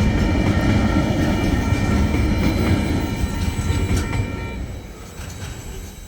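Freight train rolling past with a steady low rumble of wheels on rail, fading away from about three seconds in.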